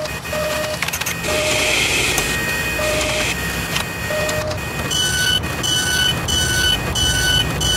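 Machinery sound effects for an animated test rig: steady mechanical whirring and clicking. Short electronic beeps sound over it, a low beep repeating unevenly at first, then about five seconds in a higher two-tone beep repeating evenly about every 0.6 seconds.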